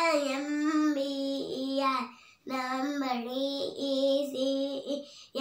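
A young girl singing in a sing-song voice, holding steady notes over two phrases with a short break a little past two seconds in.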